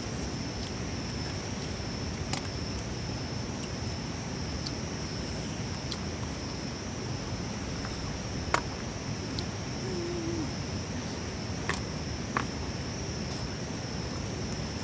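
Steady high-pitched chirring of insects, with a few short sharp clicks from chewing and from hands handling the meat.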